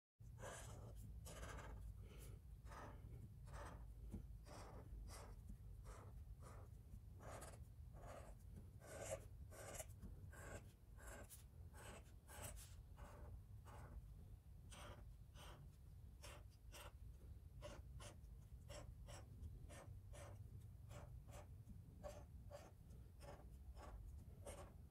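Black marker drawing stripes on paper: faint, short scratchy strokes, about two a second, over a low steady room hum.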